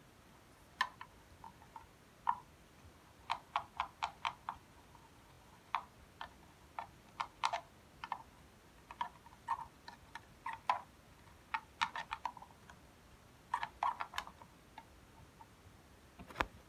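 A toothbrush clicking and tapping against the sides of a clear container as slime is stirred with it: irregular sharp clicks, some in quick runs of four or five.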